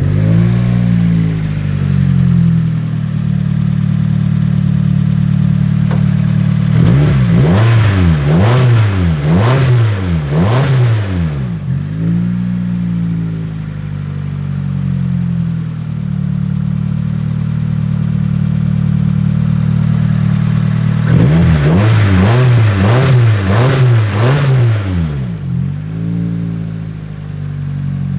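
Nissan Silvia S14's SR20 four-cylinder engine idling, then revved in two spells of several quick blips each, one about a quarter of the way in and one about three quarters of the way in. The engine has an intermittent misfire that a new igniter has not cured.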